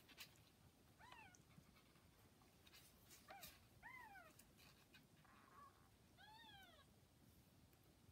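Newborn kittens, about 40 hours old, giving four thin, high mews, each rising then falling in pitch, spread across several seconds, with a few faint clicks between.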